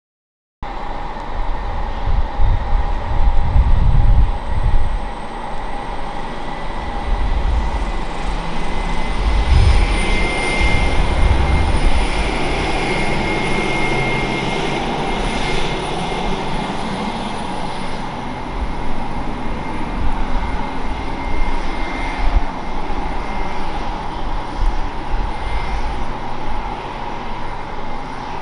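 A railway vehicle running with a steady mechanical whine over a low rumble, and gusts of wind buffeting the microphone about two and ten seconds in.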